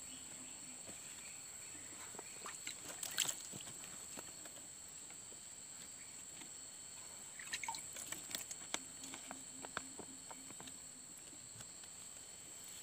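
Faint rustling and small clicks of hands handling young seedlings and their plastic growing bag, in two short clusters, over a steady high-pitched whine.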